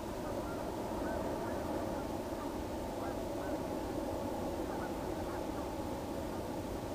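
Several faint, short bird calls over a steady background noise of rumble and hiss.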